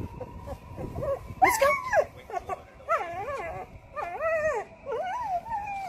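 A scared dog whining and whimpering in a string of high, wavering whines, with a louder yelp about one and a half seconds in and a long falling whine near the end: the sound of a frightened dog hesitating to step out of a boat.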